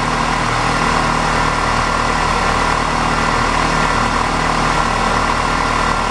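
2005 Ford Ranger's 2.3-litre four-cylinder engine idling steadily after a fresh start, running on a newly replaced fuel pump.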